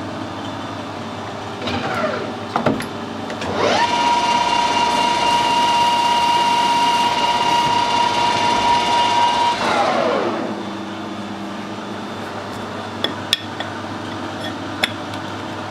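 A metal lathe spins up, runs with a steady high whine for about six seconds, then winds down. A few light metallic clicks follow.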